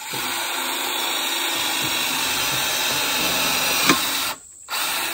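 Cordless drill running under load, boring a bolt hole into the lumber frame at a steel post bracket. It runs steadily for about four seconds with a sharp click just before it stops, then starts again briefly near the end.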